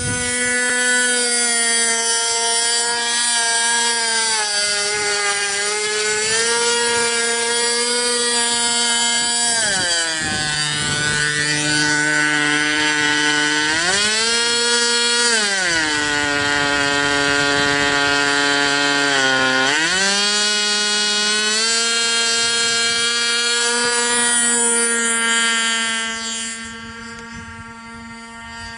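Small two-stroke glow engine of a radio-controlled model airplane running at high revs. Its pitch drops and climbs again several times as the throttle is worked, and it fades near the end.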